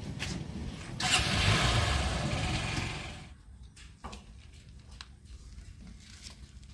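JCB 3DX backhoe loader's diesel engine running with a low rumble, with a loud rushing noise for about two seconds starting a second in, after which it falls quieter.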